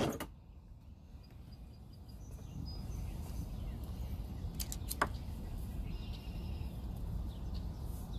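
The outboard's starter cranking cuts off right at the start, leaving a low background rumble with faint bird chirps. About five seconds in there is a single sharp click as the compression gauge hose fitting is handled at the spark plug hole.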